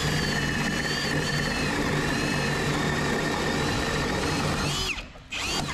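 Milwaukee Fuel Hole Hawg right-angle drill boring a hole a little over 2 inches wide through a wooden floor joist with a self-feed bit: a steady motor whine under load. It winds down and stops about five seconds in as the bit breaks through.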